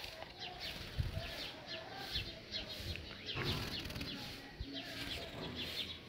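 Sparrows chirping: a rapid run of short, high, falling chirps, several a second, with a few low thumps in between.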